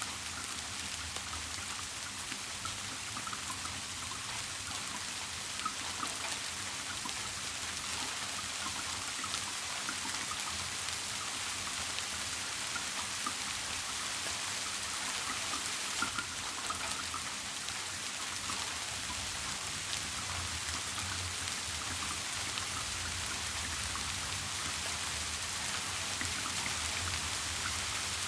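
Steady rain falling: an even hiss with scattered small drops landing, and a faint low hum underneath.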